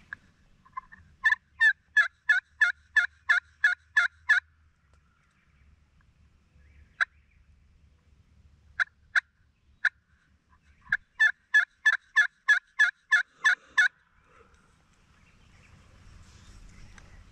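Pot-style friction turkey call (slate call) worked with a wooden striker, making hen yelps: a quick run of about ten loud, sharp yelps, a few single notes, then another run of about a dozen yelps.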